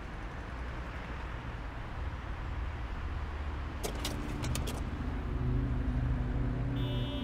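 Night street ambience: a steady low traffic rumble with road noise. A quick run of four or five sharp clicks comes about four seconds in, and music tones begin just before the end.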